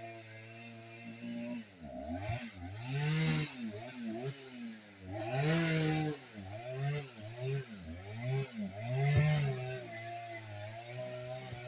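Two-stroke chainsaw revved up and down again and again while cutting wood, its pitch rising and falling about once a second, with three louder stretches of cutting. An engine idles steadily underneath.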